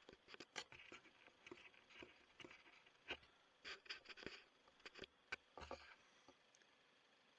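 Near silence broken by faint, irregular clicks and rustles: handling noise from the scoped rifle and its thermal scope as the shooter works the zoom.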